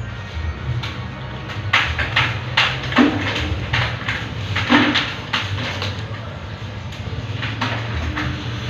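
Several short clinks and knocks of tableware, the loudest about three seconds in and again near five seconds, over a steady low hum.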